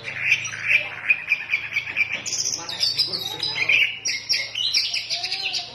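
Oriental magpie-robin (kacer) singing non-stop, a fast, varied stream of high whistles, chirps and trills.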